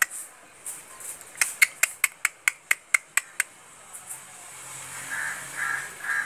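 A rapid series of sharp clicks, about four or five a second, that stops about three and a half seconds in. From about five seconds in, a bird gives short repeated caw-like calls, about two a second.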